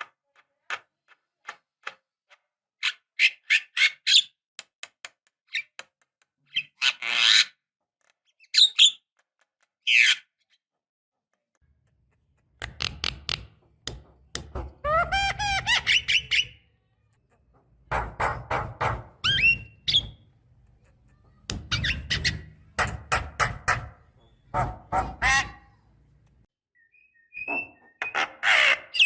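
Javan myna calling: bursts of rapid clicking chatter and harsh squawking calls with short pauses between them, some calls sliding up in pitch. From about halfway through, the bursts come longer and closer together over a low hum.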